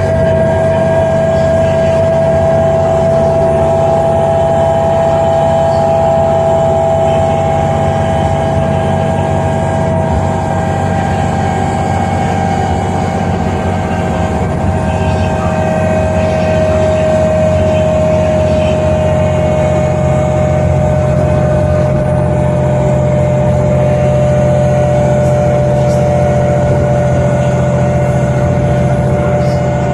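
Solaris Urbino 12 CNG city bus under way, heard from the passenger cabin: its Iveco Cursor 8 gas engine runs with a steady low note, with a strong steady drivetrain whine above it. The whine sinks slowly in pitch and falls more sharply right at the end.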